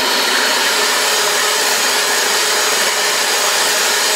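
Cuisinart electric hand mixer running steadily at a raised speed, its beaters whipping a thick mixture of whipping cream and sweetened condensed milk in a glass bowl.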